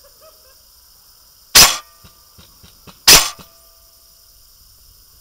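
An airsoft gun firing two loud single shots about a second and a half apart, with a few faint clicks between them.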